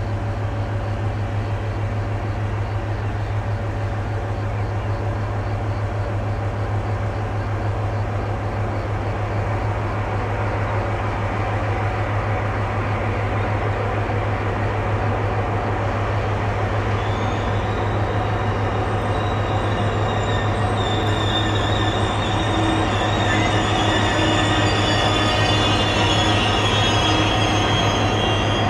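A pair of FS E.412 electric locomotives moving slowly, with a steady low hum throughout. From about two-thirds of the way in, high-pitched squealing from the wheels on the rails grows louder.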